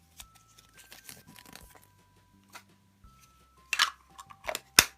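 Packaging being handled and crinkling, with small clicks and rustles and two louder sharp crackles near the end.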